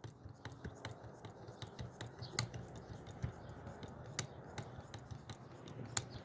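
Hydraulic knockout hand pump being worked while priming, drawing in fluid: quiet small clicks and scrapes, with a sharper click about every couple of seconds, over a faint low hum.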